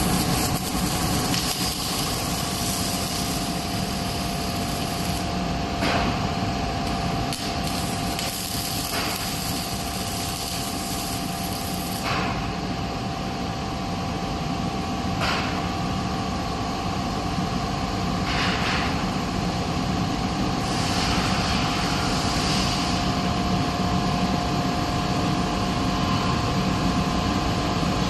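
Robotic welding cell running: a steady machine hum with a constant high hiss, and a sharp click every few seconds.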